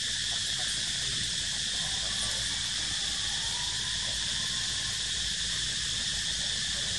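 Steady chorus of insects droning, a high even buzz that holds throughout without pauses.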